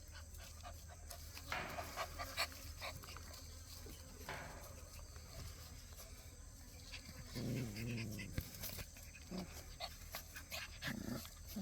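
Korean Jindo puppies at play: scuffling and panting, with a few short vocal sounds from the puppies, the longest about seven and a half seconds in.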